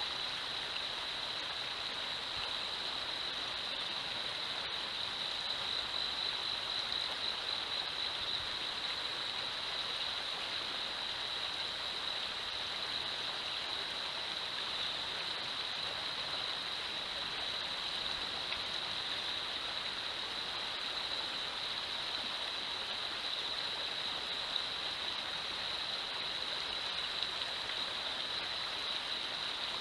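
Shallow river riffle running steadily over stones: a constant, even rushing hiss, strongest in a high-pitched band.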